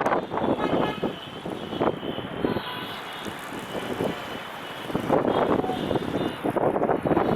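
Passenger train rolling slowly past with a steady rumble, and wind on the microphone that is loud at first, eases for a few seconds and returns about five seconds in.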